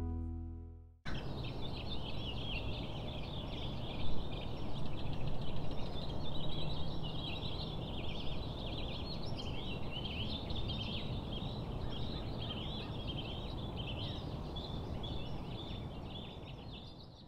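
Acoustic guitar music fades out in the first second. Then comes an outdoor chorus of many animals calling at once, a dense high chattering over a steady low background noise.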